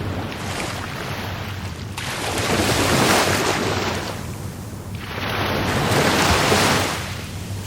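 Rough Caribbean Sea surf: two waves break and rush ashore, one swelling about two seconds in and the next about five seconds in, each rising and then falling back.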